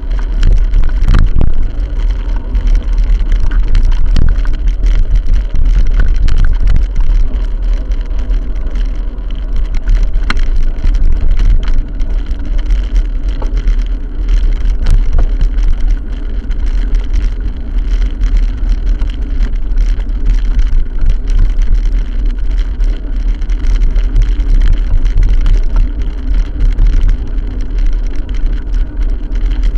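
Loud, continuous wind rumble on the microphone of a moving camera, with steady road and vehicle noise underneath.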